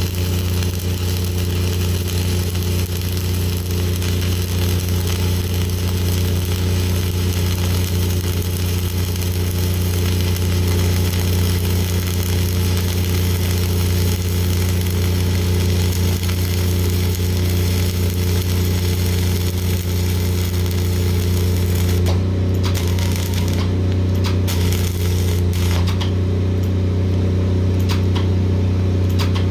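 Self-shielded flux-cored arc welding with Lincoln Innershield NR-305 5/64-inch wire at 28.8 volts: a steady crackling sizzle of the arc that stops about three quarters of the way in, then starts again briefly a couple of times near the end. A steady low engine hum runs underneath.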